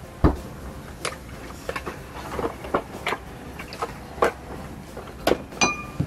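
Metal chopsticks clicking and tapping against a ceramic bowl and dishes while eating, about ten short taps spread through, with a dull knock on the table just after the start. One tap near the end rings briefly.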